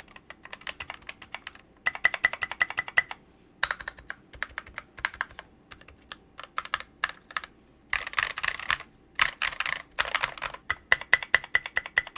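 Mechanical keyboard with Kailh Cream switches and Mito Pulse SA keycaps typed on hard and fast: bursts of rapid clacking keystrokes with short pauses between them.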